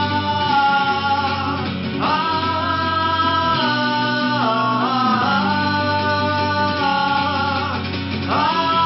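Live rock band playing, with guitar and long, drawn-out sung notes without words sliding from one pitch to the next.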